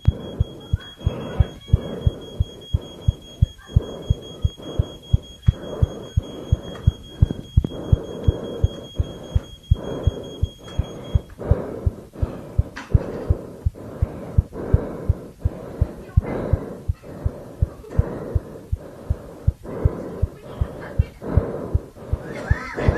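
Heartbeat-style sound effect: low, evenly spaced thumps about two to three a second over a low hum. A steady high-pitched ringing tone stops about halfway through.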